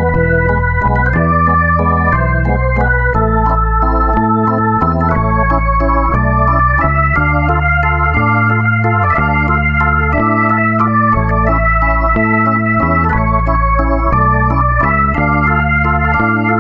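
Background music: held organ-like chords over a bass line, the notes changing every half second to a second.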